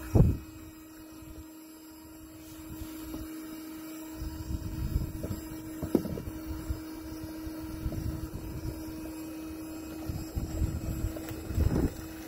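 Wind buffeting the microphone in irregular low gusts over a faint steady hum, with a low thump right at the start and another near the end.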